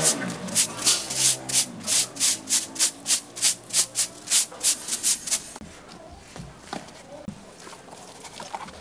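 Rhythmic back-and-forth hand scraping or sanding of a hard surface, about three strokes a second, stopping about five and a half seconds in; a few faint ticks follow.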